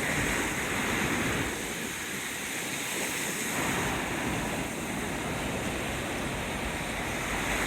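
Small sea waves breaking and washing up on the shore, the surf swelling and easing every second or two, with wind rumbling on the microphone.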